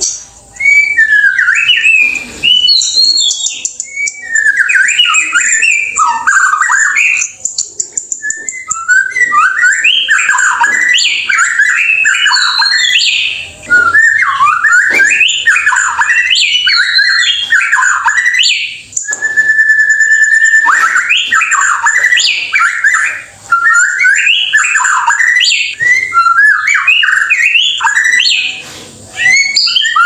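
White-rumped shama (murai batu) singing a fast, varied song of whistles, trills and harsh notes in quick phrases with short pauses. About two-thirds of the way through, one whistle is held steady for about two seconds.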